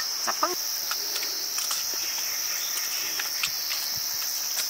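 Steady high-pitched chirring of insects, with scattered light clicks and taps.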